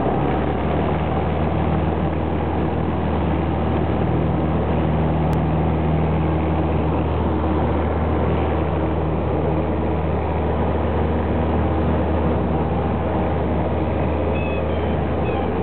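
Light single-engine airplane's piston engine and propeller running steadily at high power, heard from inside the cockpit during the take-off roll: a loud, even drone.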